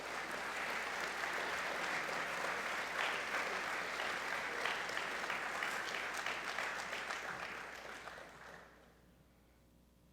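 Audience applauding steadily, then dying away about eight or nine seconds in.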